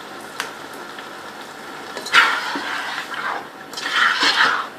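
Pot of whole mung dal bubbling on the stove, with two louder spells of bubbling about two and four seconds in.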